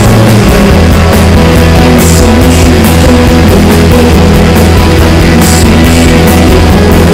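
Shoegaze rock music: a loud, dense wall of guitars over a held bass note and drums with cymbal crashes. The bass drops to a lower note about half a second in.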